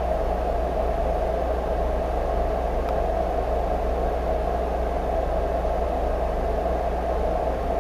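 Steady low hum with an even hiss over it, unchanging throughout; no speech.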